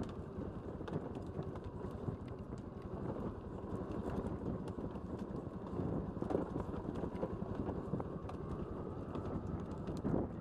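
ATV running at low speed down a rough dirt track, the engine's rumble mixed with dense, irregular knocks and rattles.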